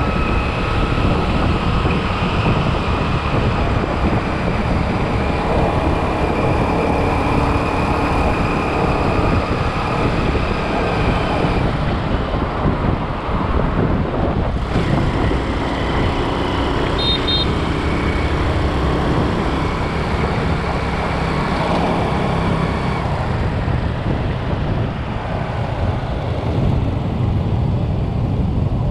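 Motorbike ride through city traffic: the bike's engine running with the steady rush of the ride, and the sound of cars and motorbikes around it. It eases off a little in the last few seconds as the bike slows.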